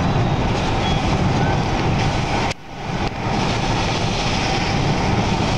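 Steady road and engine noise heard inside a moving car. The sound drops out suddenly about halfway through and swells back within half a second.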